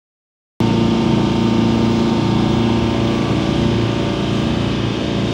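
Small passenger boat's engine running steadily under way, heard from inside the cabin, with water rushing along the hull. It starts abruptly about half a second in, after silence.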